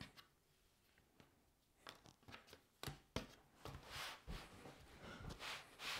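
Near silence, then from about two seconds in a few faint clicks and soft rustles of cardboard jigsaw puzzle pieces being handled and pressed into place on the table.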